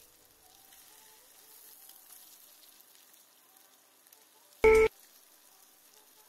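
Faint sizzling of eggs and split hot dogs frying in oil in a stainless steel pan, with one short, loud electronic beep a little past halfway through.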